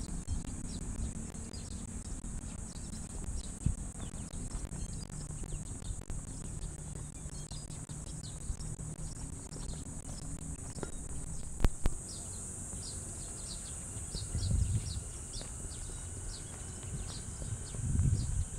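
A steady, high-pitched drone of insects, with birds chirping in many short, quick notes that grow busier in the second half. There is a low rumble underneath and a single sharp click about twelve seconds in.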